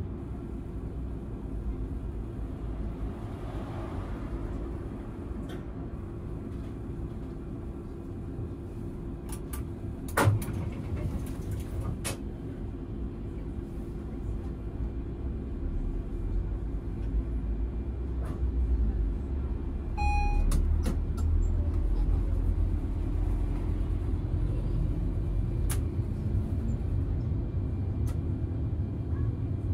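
Inside a tram's driver cab: a steady electrical hum while the tram stands, then the low rumble of the tram pulling away and running on the rails, growing louder in the second half. A sharp click about a third of the way in and a short beep about two-thirds in.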